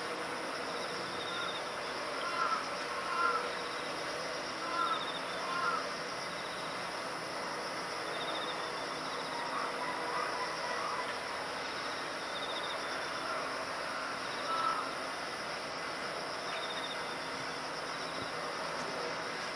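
Steady high-pitched insect chorus, with a short trilled chirp repeating every few seconds. A few brief louder sounds rise over it in the first six seconds and once near fifteen seconds.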